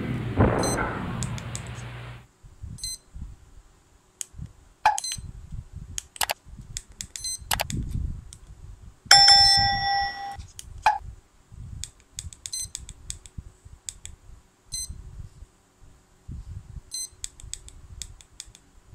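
Short high electronic beeps from the KK2 flight controller's buzzer as its buttons are pressed, with dull clicks of the buttons and handling between them. About nine seconds in comes one longer, louder beep of several steady tones. Background music fades out in the first two seconds.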